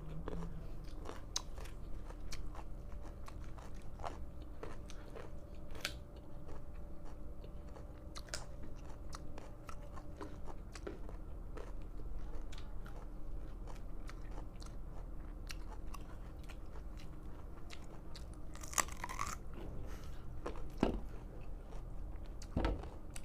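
Hard raw carrots being bitten and chewed, with crisp crunching snaps scattered throughout.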